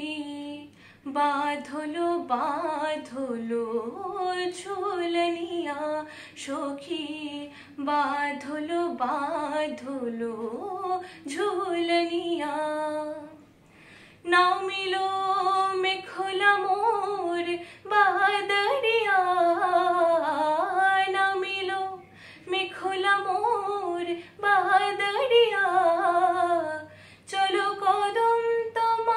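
A girl singing solo without accompaniment, in long phrases with a wavering, ornamented pitch and a few short breaks for breath.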